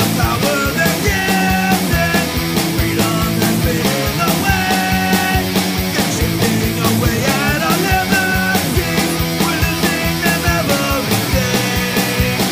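Punk rock band playing at full volume, with drums keeping a fast steady beat under the guitars.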